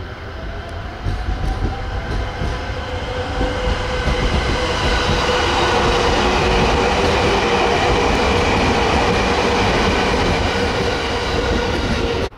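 A 209 series electric train (the B.B.BASE set) passing at speed, its wheels running over the rails with a steady whine of several tones. The sound builds as the train approaches, stays loud while the cars go by, and cuts off suddenly near the end.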